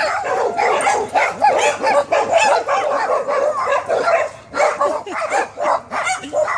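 Small dog whining and yipping excitedly, an unbroken run of high, wavering cries: the greeting of a dog reunited with its owner.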